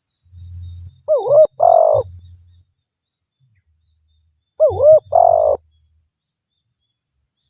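Spotted dove cooing: two call phrases about three and a half seconds apart, each a quick wavering double note followed by a longer coo.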